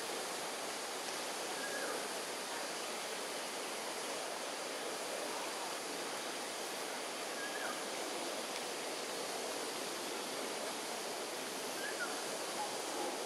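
Steady, even hiss of outdoor background noise, with three faint, brief bird chirps spread through it.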